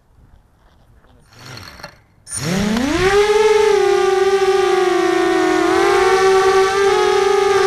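A racing quadcopter's electric motors and propellers spinning up with a quickly rising whine a little over two seconds in, then holding a steady, slightly wavering whine.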